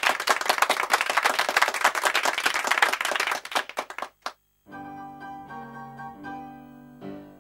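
Clapping that fades out over the first three and a half seconds. After a brief pause, quieter music with sustained chords begins about two-thirds of the way in.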